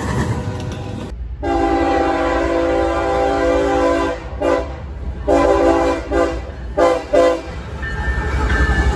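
Diesel freight locomotive's air horn sounding a chord of several notes: one long blast of nearly three seconds, then a run of shorter blasts, over the low rumble of the approaching train.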